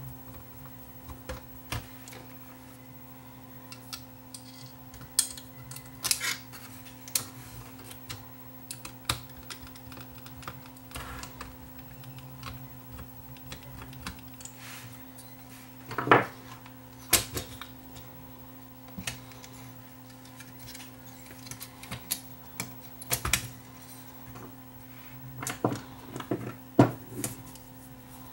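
Irregular clicks, taps and knocks of small metal parts being handled as a cassette deck's tape-transport chassis and capstan motor are fitted back together by hand, with a few sharper knocks about halfway and near the end. A steady low hum runs underneath.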